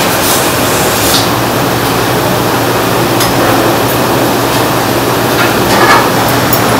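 Loud, steady rushing noise of kitchen ventilation with a low hum, broken a few times by short metal clinks of duck hooks knocking on a steel hanging rail.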